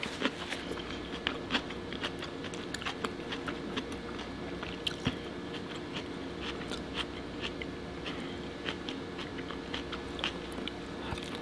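Close-miked chewing and mouth sounds of someone eating king crab meat dipped in butter: irregular small clicks and smacks over a faint steady hum.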